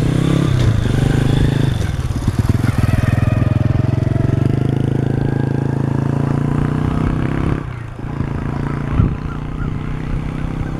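Thai kite hummer (aek), a bow strung on a bird kite, droning in the wind with a steady, buzzing 'dui-dui' hum. The hum wavers in pitch and fades briefly about three quarters of the way through.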